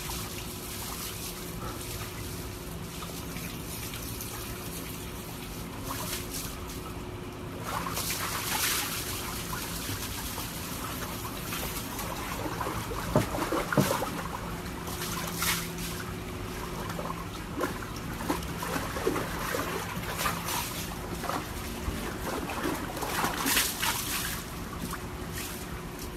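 Water sloshing and splashing in a plastic tub as a Siberian husky shifts about and paws at the water, with several louder splashes over a steady trickling background.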